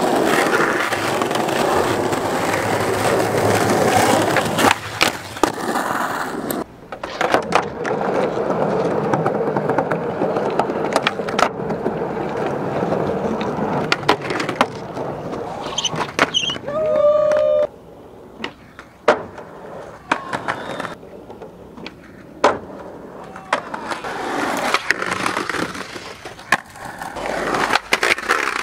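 Skateboard wheels rolling over rough asphalt and paving, broken by sharp clacks of the tail popping and wheels landing, with a board grinding along ledges. Several separate skating clips follow one another.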